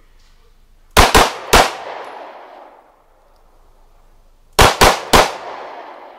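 Glock pistol firing two fast strings of three shots, the first about a second in and the second about four and a half seconds in, each shot trailing off in echo.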